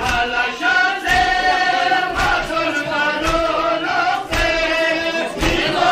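A crowd of men chanting a Shia mourning lament (nauha) in unison, with sharp thumps of hands beating on chests (matam) several times, about a second apart.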